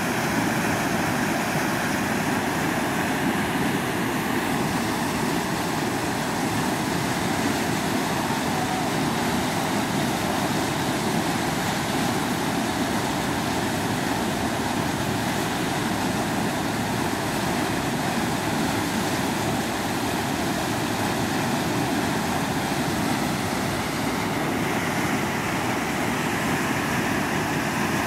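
Whitewater rushing steadily through a river hole, a standing surf wave, on a river running at about 2500 cubic feet per second.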